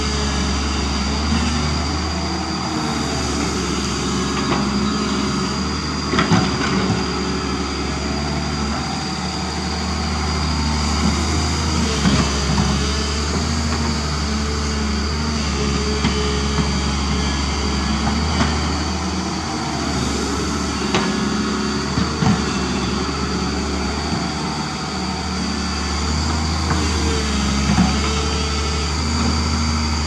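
Doosan DX225LC crawler excavator's diesel engine running steadily as it digs, with a low drone and a steady high whine. Several sharp knocks of the bucket and boom at work stand out every few seconds.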